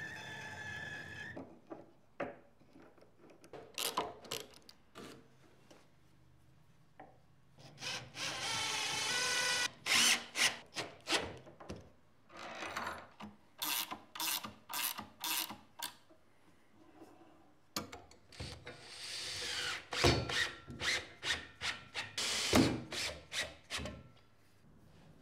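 Cordless drill-driver driving screws into plywood: a few clicks and knocks of handling, then the motor running in longer pulls and in trains of short bursts, about two a second.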